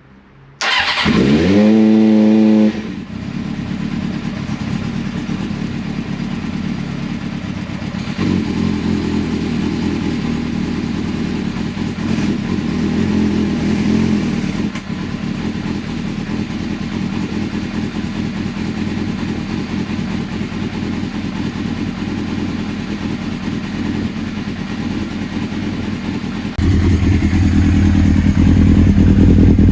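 1996 Suzuki GSX-R750 SRAD's inline-four engine starting. It catches just under a second in, revs up briefly, then settles into steady running, and steps up to louder, faster running near the end. It fires quickly now that the swapped signal-generator wires give it spark again.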